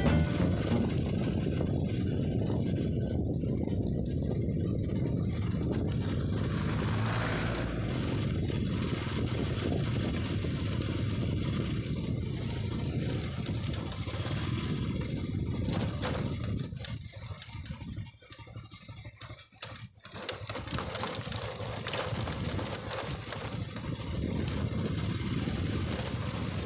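Steady rumble of a small vehicle travelling on a gravel road, heard from on board: engine and tyre noise. A little past the middle it turns choppy and drops for about three seconds, with a run of faint high pips, then the steady rumble returns.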